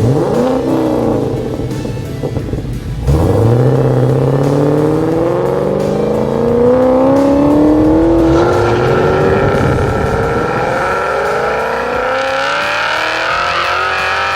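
Holden VFII Commodore's 6.2-litre LS3 V8 through XForce long-tube headers, 100-cell cats and twin 3-inch VAREX mufflers, accelerating hard. A short rising rev at the start, then about three seconds in a long pull with the engine note climbing steadily in pitch.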